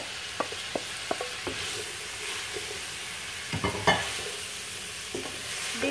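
Shredded cabbage and chopped vegetables sizzling in oil in a pan while being stirred with a wooden spatula. There are a few light taps and scrapes early on, and a louder clatter of the spatula about three and a half seconds in.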